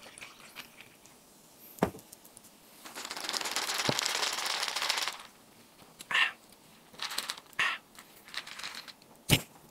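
Red Sting energy drink poured from the can over ice, then sipped through a straw: a crackling slurp lasting about two seconds, starting about three seconds in, then several short sips, with a couple of sharp clicks.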